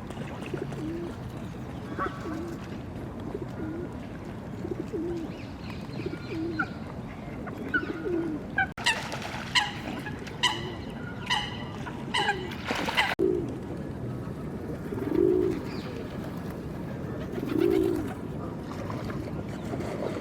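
Pigeons cooing over and over, with two louder coos near the end. About halfway through, another bird gives a run of about half a dozen louder, short calls.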